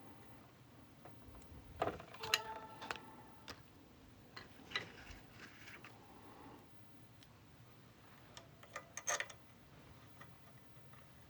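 Scattered clicks and knocks of plastic 3D-printer parts being handled and fitted together, in small clusters about two, five and nine seconds in, a few of them ringing briefly.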